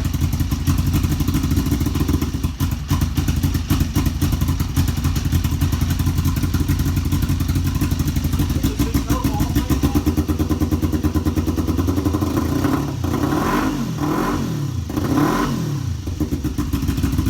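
Kawasaki EX500's parallel-twin engine running at a rough idle after sitting unused for a couple of years, revved up and back down twice near the end.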